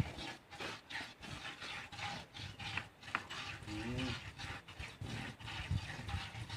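A cow being milked by hand: milk squirts rhythmically into a pail at about three strokes a second. A short wavering low call is heard about four seconds in.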